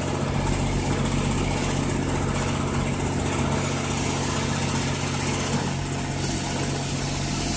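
A loud motor running steadily at idle with a lawnmower-like sound. About six seconds in, a higher hiss joins as the touchless car wash's spray starts up.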